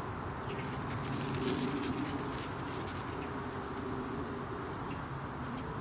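A steady low buzzing drone, with a few faint high chirps over it.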